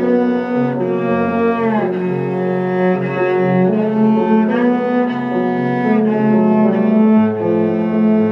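A cello and piano duo playing a cello sonata, the bowed cello carrying the line in long held notes with a couple of slides between pitches.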